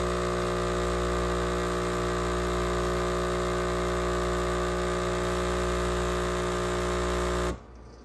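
Philips 3200 espresso machine's pump humming steadily as it forces hot water through the coffee to brew an espresso shot. The hum cuts off suddenly near the end as the shot finishes.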